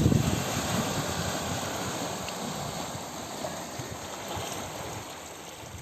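Steady rushing of sea water and waves, mixed with wind on the microphone, loudest at the start and easing off slightly.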